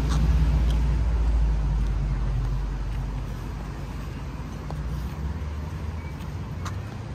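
Low rumble of a motor vehicle in street traffic, loudest at first and fading away, with a few faint light clicks.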